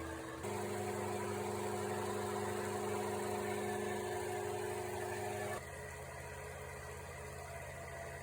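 Electric motor and gear train of a 1930s 16 mm film projector running with a steady hum, its motor brushes freshly cleaned to quiet it. The pitch and level shift abruptly about half a second in and again just after five seconds.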